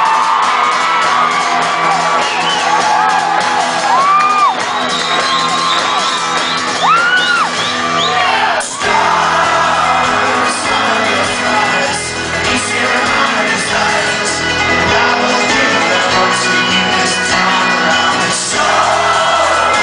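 Live folk-rock band playing the instrumental break of a song, with the crowd whooping and shouting over the music in the first half. About nine seconds in there is a brief drop, then the full band comes in with a driving beat.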